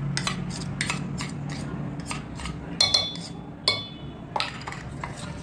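Steel spoon clicking and scraping against stainless steel bowls as whipped cream is scooped off and stirred into melted white chocolate. There are two sharper ringing clinks about three seconds in.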